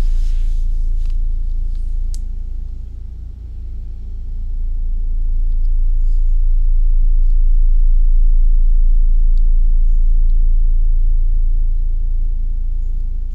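Steady low rumble or hum, with a few faint clicks and taps over it.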